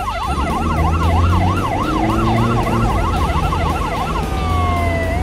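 Ambulance's electronic siren in a fast yelp, rising and falling about three times a second. Near the end it switches to a slow wail that falls and then begins to rise again, with a low rumble beneath.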